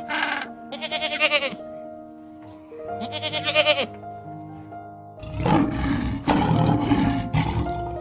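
Background music under animal calls: two short wavering bleating calls, the second from a goat, then a lion growling for about two seconds from around five seconds in.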